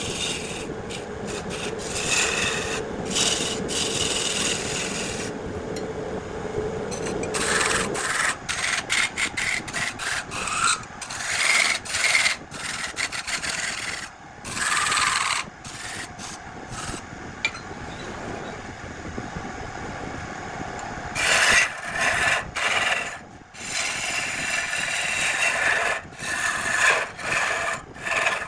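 A lathe turning a piece of jackfruit wood while a turning tool scrapes and cuts it in repeated strokes of varying length. A steady hum runs under the cutting for the first seven or eight seconds, then drops away.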